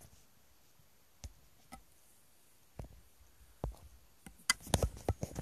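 A few scattered soft clicks, then a quick cluster of louder knocks and clicks in the last second: handling noise of the phone that is filming as it is gripped and moved.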